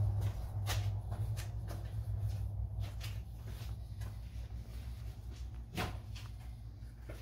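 A steady low hum, with scattered light clicks and knocks over it; the sharpest knock comes about six seconds in.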